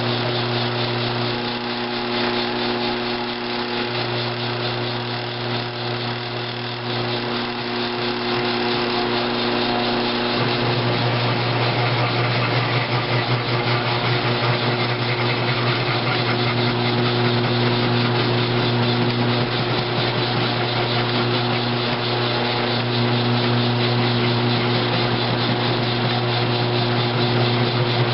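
Grizzly G1007 milling machine running steadily, its end mill taking a very light cleanup cut on a cast iron valve seat: a steady motor hum with a cutting hiss, louder from about ten seconds in.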